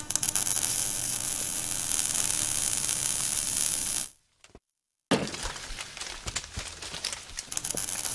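Sound effects of an animated logo reveal: a steady hiss for about four seconds, a short break, then about three seconds of crackling with many small clicks.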